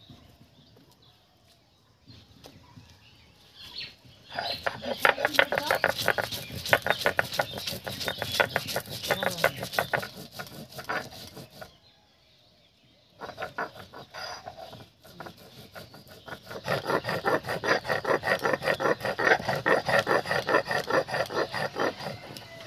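Coriander seeds being ground on a sil-batta, a stone roller worked back and forth over a flat stone slab. The stone-on-stone scraping and crushing starts about four seconds in and goes in quick, even strokes. It runs in two long spells with a short pause about halfway.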